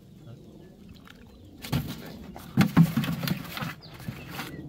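Hands splashing and sloshing in shallow muddy pond water while groping for fish: a run of splashes starting a little under two seconds in, loudest just past the middle and then dying away.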